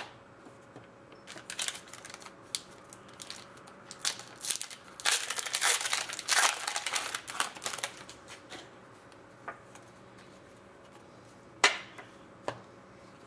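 Foil card pack being torn open and crinkled by hand, a run of crackling rustles that is densest midway. A couple of sharp clicks near the end.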